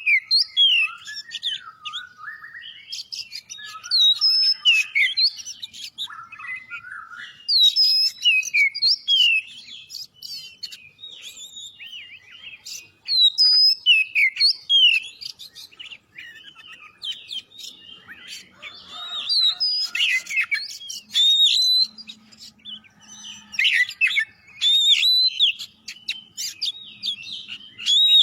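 Oriental magpie-robin (kacer) singing in full voice: a rich, varied run of quick whistled phrases that swoop up and down, coming in loud bursts of a second or two with short pauses between.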